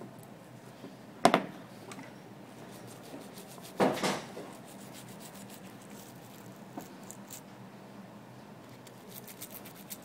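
Toothbrush bristles scrubbing the dock-connector port of an iPhone 4S, a light scratchy rubbing, to clear dirt from the connector. Two louder knocks break in, about a second in and about four seconds in.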